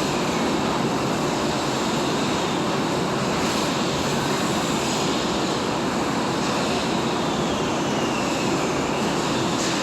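TIG welding arc burning steadily: a constant, even hiss with no breaks.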